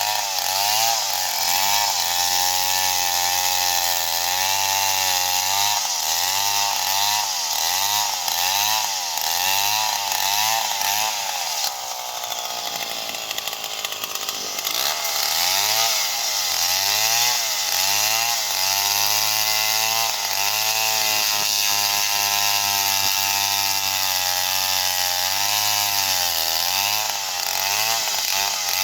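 STIHL chainsaw running at high revs while cutting into a palm trunk, its engine pitch rising and falling about once a second as the chain bites. About twelve seconds in, the engine sags lower for a few seconds, then picks back up.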